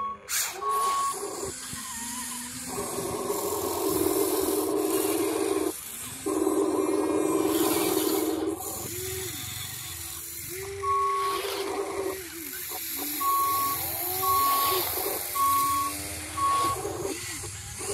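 Remote-control Volvo A40G articulated dump truck's sound module sounding reversing beeps: short high beeps about twice a second, once just after the start and again in the second half. Two long steady tones of a few seconds each come earlier.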